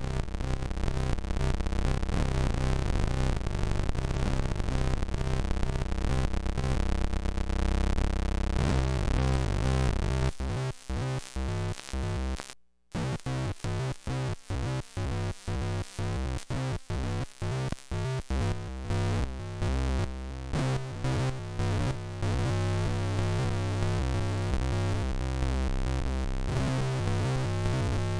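Electric guitar played through a hand-built circuit-bent noise pedal with its slower octave settings on, giving a harsh synth-like buzz whose pitch steps about in a pseudo-random changing pattern. About a third of the way in, the sound starts chopping on and off in rapid stutters and cuts out once briefly. It settles back into a steady buzz for the last quarter.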